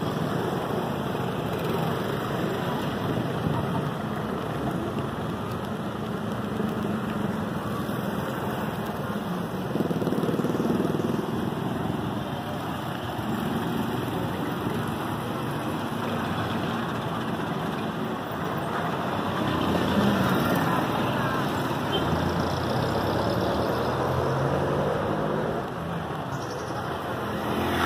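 Street traffic: a steady hum of cars and motorcycles passing, growing louder about ten seconds in and again around twenty seconds.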